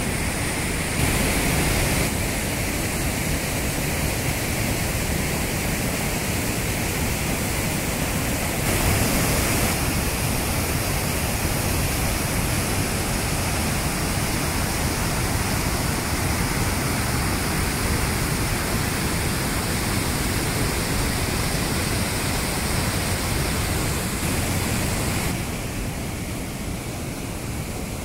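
Large waterfall rushing steadily, a dense even roar of falling water. The level steps up slightly about a second in and again around nine seconds, and drops a little near the end.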